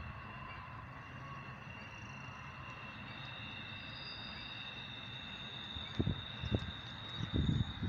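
Double-stack intermodal freight train rolling past: a steady low rumble of the cars on the rails, with a thin, steady high whine over it. Several loud low thumps near the end.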